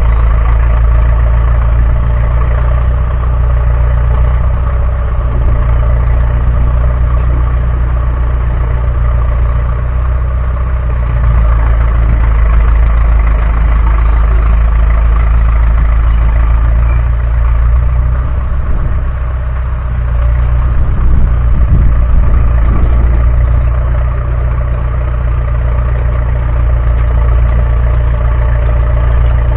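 Heavy diesel engine of earthmoving machinery running steadily, a deep even hum that sags briefly about two-thirds of the way through.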